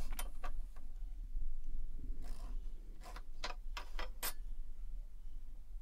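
Light clicks and taps of a steel ruler, a metal speed square and a pencil being handled and set down on a wooden workbench, with a soft scrape about two seconds in and a quick run of clicks near the end.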